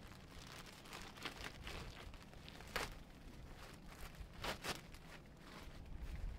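Cardboard packaging being handled while a box is opened: a few short scrapes and knocks over a faint background hiss.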